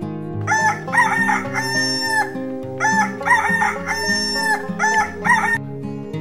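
A rooster crowing twice, over background music.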